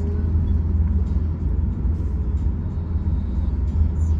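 Steady low rumble of vehicle engine and road noise.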